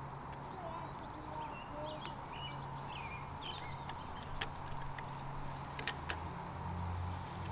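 Scattered sharp clicks of metal parts being handled at a motorcycle's handlebar lever assembly, with small birds chirping and a steady low hum behind. The hum grows a little louder near the end.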